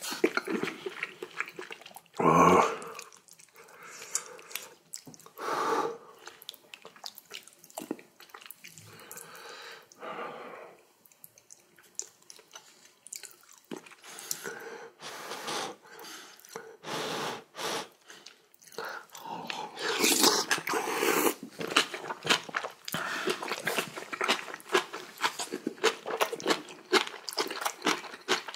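Close-miked eating sounds: a mouthful of seaweed soup, rice and kimchi being chewed, with a few louder, longer mouth noises.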